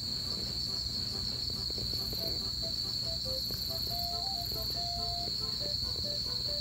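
Night insects, crickets, chirping in a steady high trill, with a soft melody of short single notes playing over them.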